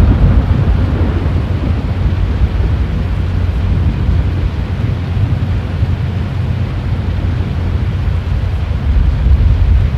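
Storm wind buffeting the microphone: a loud, steady low rumble.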